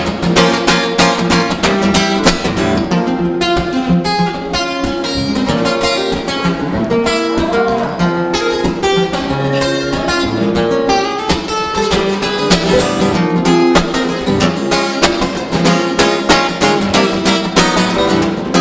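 Acoustic guitar strummed in a steady rhythm with sharp, percussive strokes, an instrumental passage with no singing.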